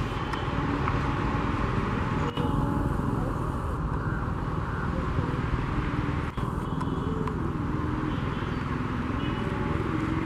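Steady rumble of vehicle noise, with faint wavering tones over it and two brief clicks, about two and six seconds in.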